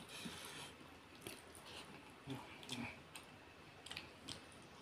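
A person eating egg curry and rice by hand: faint, irregular wet chewing and squishing sounds with short soft smacks.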